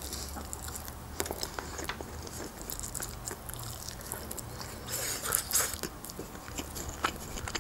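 Close-miked chewing of a mouthful of grilled chicken: soft, wet mouth clicks and smacks scattered throughout.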